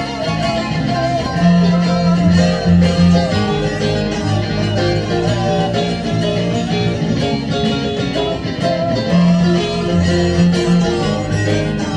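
Electronic keyboard played with both hands: an instrumental passage of chords over a sustained bass line.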